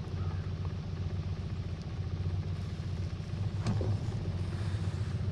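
Boat's outboard motor idling: a steady low, pulsing rumble, with one brief sharp sound about three-quarters of the way in.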